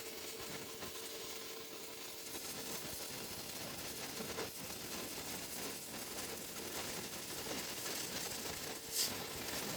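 Steady hiss of a CNC plasma cutter cutting steel, with one short sharp click about nine seconds in.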